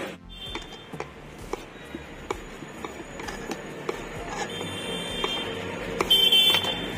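Knife chopping tomatoes on a wooden cutting board, a sharp tap roughly every half second. Short high-pitched tones sound a few times, the loudest near the end.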